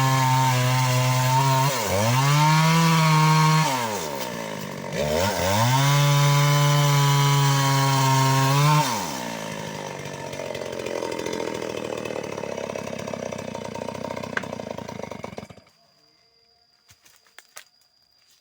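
Stihl 381 two-stroke chainsaw running at high revs while cutting mahogany, its pitch dipping sharply twice before climbing back. About nine seconds in it drops to a lower, rougher running, then stops about fifteen seconds in.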